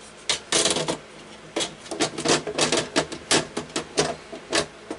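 Sheet-metal side cover of a Dell OptiPlex 3020 desktop being slid back onto the chassis. There is a short scrape about half a second in, then a quick, irregular clatter of metal clicks and taps as the cover is pushed and seated into place.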